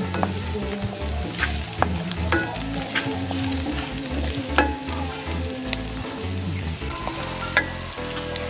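Sliced onions and garlic sizzling in hot cooking oil in a pan while being stirred, with sharp clicks and scrapes of the stirring utensil against the pan.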